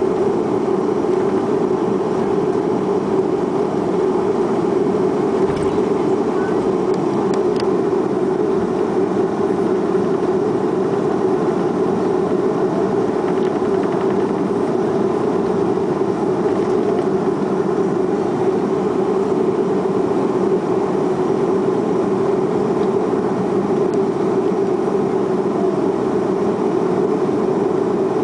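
Boeing 737-300's CFM56 jet engines running at steady low power, a constant hum and rush of noise that neither rises nor falls, with no spool-up for takeoff yet.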